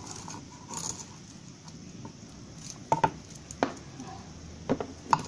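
Crisp fried lumpia wrapper crackling as the spring rolls are broken apart on a wooden board: four short, sharp crunches in the second half, the crunch that shows the skin is crisp.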